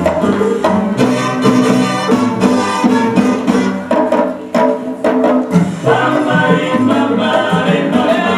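Salsa music played loud, with steady percussion; about halfway through it thins briefly to mostly drums before the full band comes back in.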